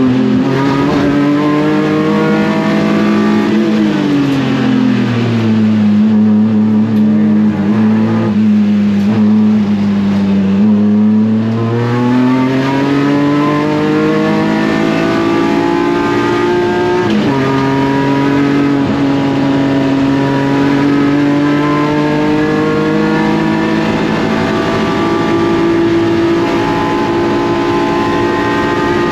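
BMW E36 race car's S54 straight-six engine at full race pace: the revs fall away about four seconds in, climb again from about twelve seconds, and drop sharply at an upshift partway through and again at the very end.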